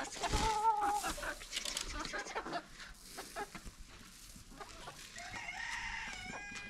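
Chickens calling: a short call about half a second in and a longer, wavering call near the end, with scattered clicks and knocks.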